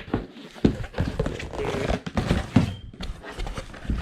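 A cardboard product box being handled and turned over: irregular knocks and taps with scraping between them.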